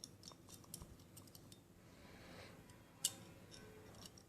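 Small metal parts of a miniature alloy Luger P08 model pistol clicking and scraping as it is fitted back together, with one sharper click about three seconds in.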